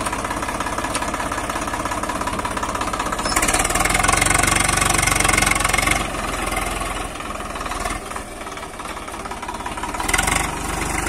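Swaraj 742 XT tractor's diesel engine running. It revs up about three and a half seconds in, eases back about six seconds in, and picks up again near the end.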